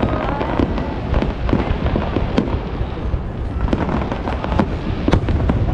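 Fireworks display: a dense barrage of booming and crackling bursts, several bangs a second with no letup.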